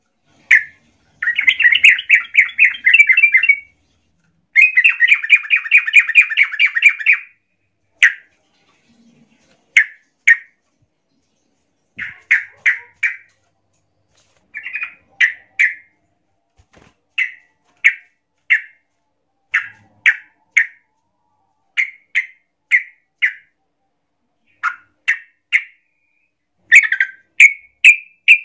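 Yellow-vented bulbul (trucukan) calling loudly. Two long, rapid chattering runs come in the first seven seconds. After that come short bubbly notes in clusters of two to four, every second or two. This is the agitated calling that keepers call ngamuk, a bird challenging a rival.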